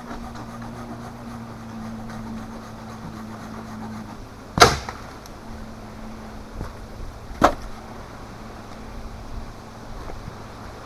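Firewood being cut: two sharp cracks about three seconds apart, the second a little quieter, over a steady low hum.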